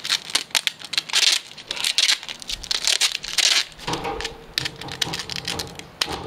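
Clear packing tape pulled off the roll in several short noisy pulls, with crinkling from plastic bags being handled.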